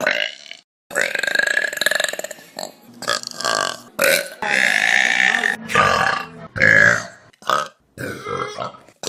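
Human burps, one after another in a string of short clips that start and stop abruptly. Some are long and drawn out, about a second or more, and others are short.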